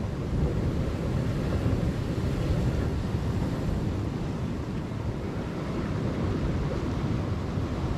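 Wind buffeting the microphone over the steady wash of surf breaking on rocks.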